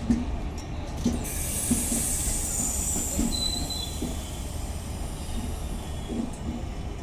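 Train running past on the rails, wheels knocking over rail joints every second or so under a steady rumble. From about a second in, a high hiss and screech of the wheels rises over it, with a brief thin squeal a little after three seconds, then fades.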